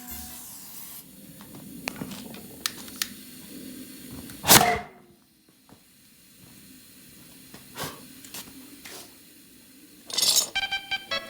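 Hissing with a few sharp clicks, then one loud bang about four and a half seconds in as the tire's bead seats onto the 20-inch rim, followed by another short burst of hissing near the end.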